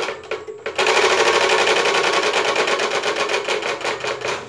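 Homemade PET-bottle bicycle 'exhaust': a plastic flap mounted in a cut PET bottle by the rear wheel slapping the spokes as the pedal is cranked by hand. A few separate clacks, then a fast, loud, buzzing rattle meant to imitate a motorcycle engine, slowing slightly near the end.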